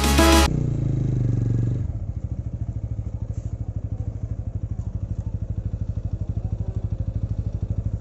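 Motorcycle engine running, settling after about two seconds into an even, steady putter.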